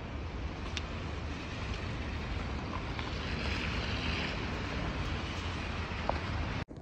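Wind buffeting the microphone: a steady rushing noise, heaviest in the low end, that cuts off abruptly near the end.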